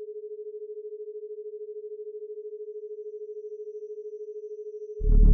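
A single steady pure tone, like a telephone dial tone, held unbroken. About five seconds in, a loud, deep electronic music swell with fast pulsing cuts in over it.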